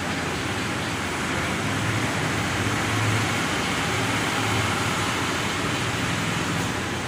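Steady background hiss, like fan or room noise, with a faint low hum that swells a little in the middle.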